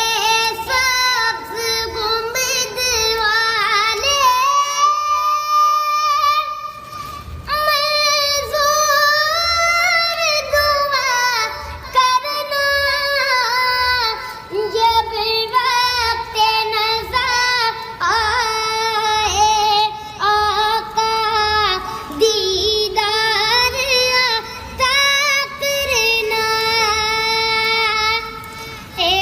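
An Islamic devotional song sung by a high solo voice, with long, ornamented notes that bend up and down. A soft low beat of about two thumps a second runs underneath.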